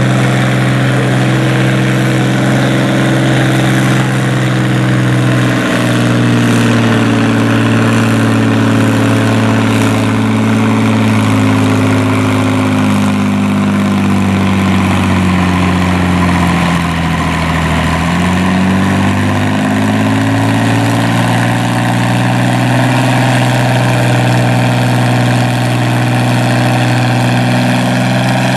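International 766 tractor's diesel engine running under load while pulling a weight-transfer sled. Its steady pitch sags a little past halfway, then climbs back up.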